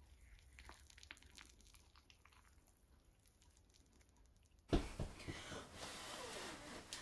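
A metal spoon scraping and crunching faintly through a crisp panko crumb topping in a glass baking dish, with small clicks. About two-thirds through, a sudden thump, then louder room noise with soft mouth sounds as a hot spoonful is tasted.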